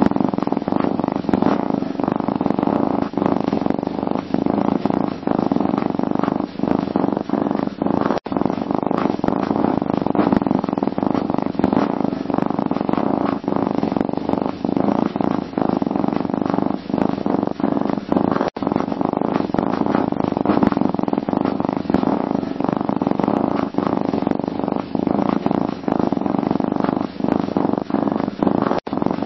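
Domestic cat purring, a loud, steady, continuous purr broken by a short gap about every ten seconds.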